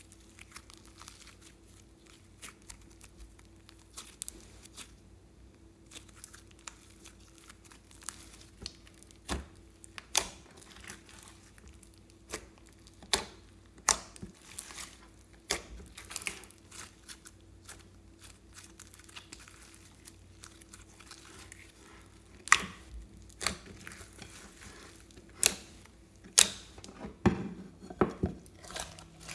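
Hands squeezing and stretching a large mass of glossy slime mixed with clay in a glass bowl: irregular sticky crackles and sharp pops, coming thicker and louder in the last several seconds.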